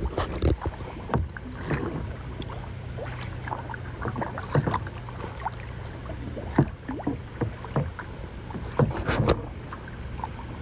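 Kayak paddles dipping and splashing in calm water, with small splashes and drips at irregular intervals over a steady low hum.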